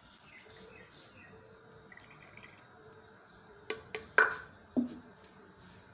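Low background hush, then about four seconds in four sharp knocks and clinks of a utensil against an earthenware cooking pot, the loudest with a short ring.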